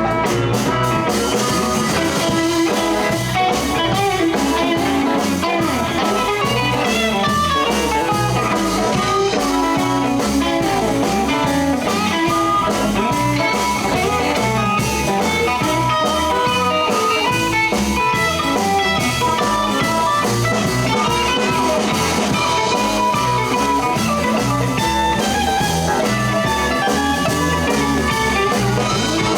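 Live blues band playing an instrumental break in a shuffle in E, with guitar and drums, no singing.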